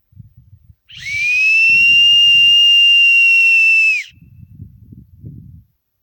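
A whistle blown in one long, steady, shrill note with a breathy hiss, lasting about three seconds. The pitch rises slightly as it starts and drops as it cuts off. Faint low rustling comes before and after.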